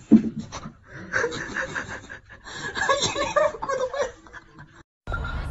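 A person laughing in short bursts, in two bouts, the second longer, after a brief low sound right at the start.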